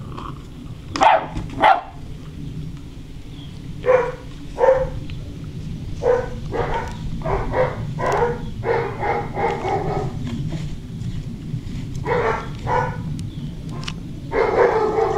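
Six-week-old German Shorthaired Pointer puppies yapping and barking in play: short high yaps, some single and some in quick runs, coming thicker near the end.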